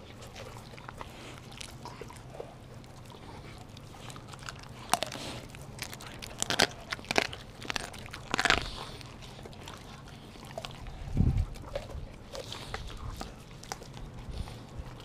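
Dogs biting and tearing at a whole raw chicken: irregular sharp snaps and crunches of teeth on the carcass, clustered in the middle, with a dull thump about eleven seconds in.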